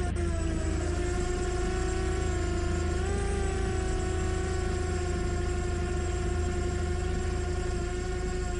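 Small drone's propellers whining steadily in flight. The pitch dips slightly just after the start and rises a little about three seconds in, over a low rumble.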